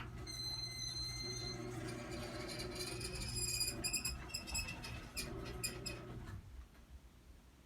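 Old Chamberlain half-horsepower chain-drive garage door opener running as the door closes: a steady motor hum with high squeaks and clicks over it. It stops about six seconds in.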